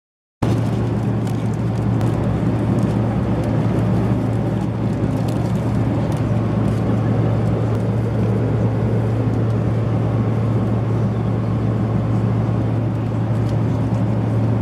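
Steady cabin drone of a moving vehicle: a strong, even low hum under a wide rushing noise, with no change in pitch, starting and stopping abruptly at clip cuts.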